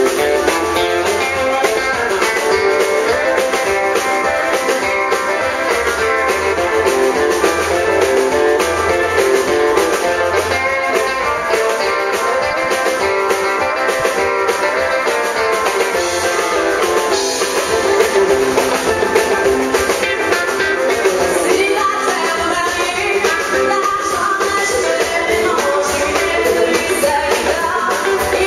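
Live country-rock band playing, with a woman singing over electric guitars and drums.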